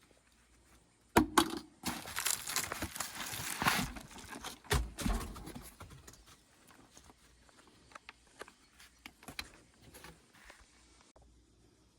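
A sharp knock, then a few seconds of rustling and scraping with a second knock, tapering into scattered light clicks: handling noise.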